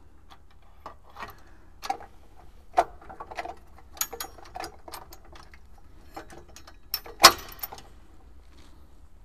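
Irregular metallic clicks and clinks of bolts, nuts and a steel bull-bar mounting bracket being fitted by hand onto a vehicle's chassis, with one louder knock about seven seconds in.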